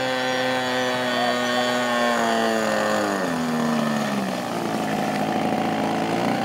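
Radio-controlled float plane's single engine and propeller running at steady speed, then winding down in pitch over about two seconds as the throttle is pulled back on the water, settling at a lower speed about four seconds in.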